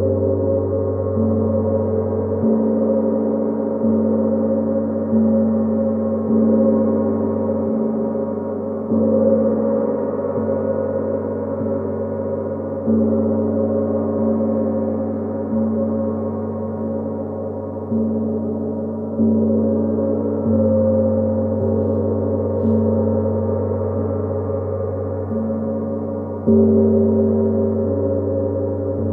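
Gong played continuously with soft strokes every second or so, and a few longer gaps between them. Each stroke swells the sound, and the deep tones ring on and overlap into an unbroken wash.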